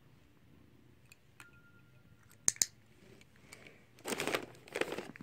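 A training clicker clicks twice in quick succession about two and a half seconds in, then a cat crunches a treat in two short bouts near the end.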